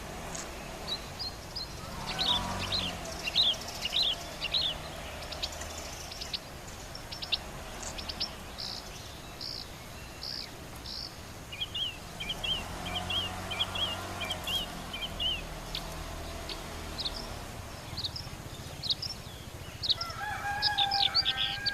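Wild birds chirping: quick runs of short, high chirps throughout, with a lower, longer call near the end.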